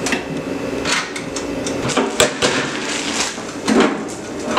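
Oster toaster oven's control knob turned with a run of sharp clicks, then its door handled with a louder knock near the end, over a steady hum.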